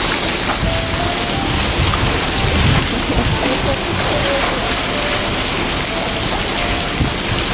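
Steady rushing and splashing of pool water as a polar bear rolls and dives with a log toy.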